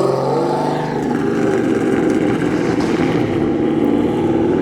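A car engine running loudly as the car rolls off, its note fairly steady with a slight dip about a second in.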